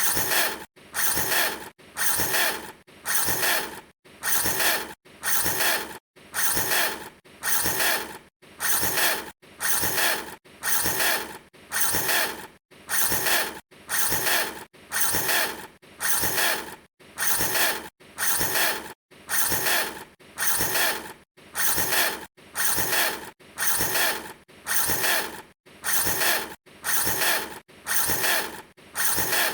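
Short bursts of mechanical rattling and clicking, repeating about once a second at a steady, even pace with brief silences between.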